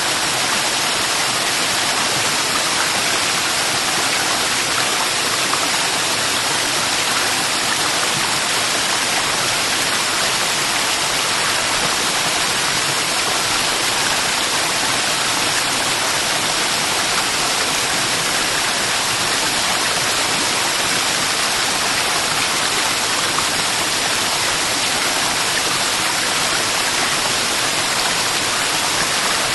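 Waterfall: water rushing and splashing in a steady, unbroken hiss.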